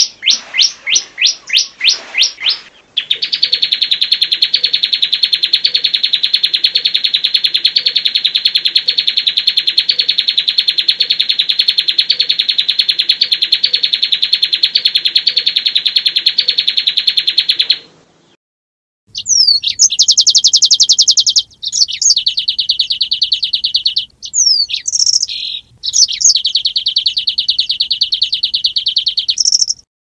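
Songbird song from a bird-training recording (masteran). First a quick series of falling whistled notes, then a long, fast, unbroken roll of about fifteen seconds. After a short break come more rapid trills broken by steep sweeping notes.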